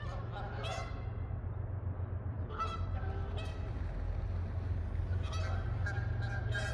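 Geese honking in three bouts of loud calls, squabbling among themselves, over a steady low rumble.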